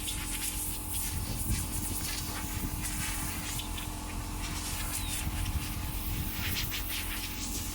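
Steady low mechanical hum with a constant tone, overlaid by scattered light clicks and taps that cluster near the end.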